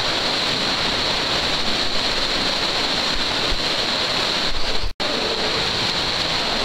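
Continuous splashing and churning of pool water as several people run and drive their arms through it. The sound cuts out for an instant about five seconds in.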